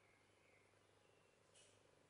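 Near silence: room tone, with one brief faint rustle of hands handling the riveted wooden handle near the end.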